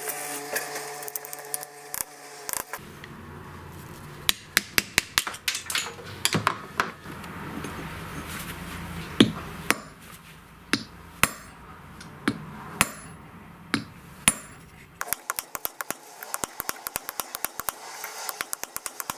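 Hammer blows on metal at an anvil, striking the old brass hammer head: a dozen or so separate sharp, ringing strikes at irregular intervals, then a fast run of lighter taps in the last few seconds.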